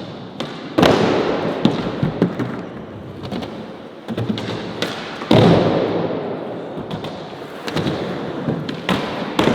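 Skateboard slapping down hard on concrete twice, about a second in and again about five seconds in, each time followed by a rumble of wheels rolling that fades away. Lighter clacks of the board come in between.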